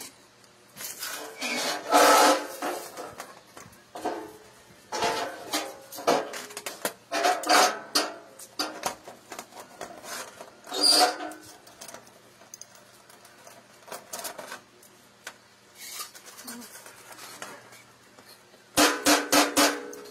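Steel parts of a homemade puller (cut sprocket segments, bolts and a threaded rod) clinking and knocking together as they are fitted by hand, in irregular bursts with short metallic ringing, and a quick run of clicks near the end.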